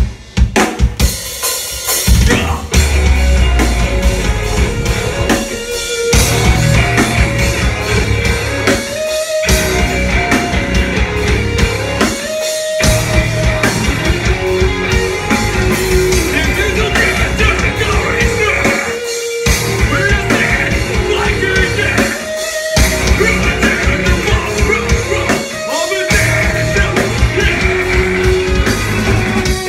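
A metalcore band playing live: electric guitars, bass and a drum kit, with singing over them. The whole band stops dead for a moment every few seconds.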